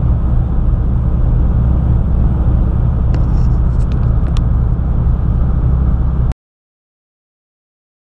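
Semi truck cruising on the highway, heard inside the cab: a steady diesel engine drone with road noise and a few faint ticks around the middle. It cuts off suddenly to dead silence about six seconds in.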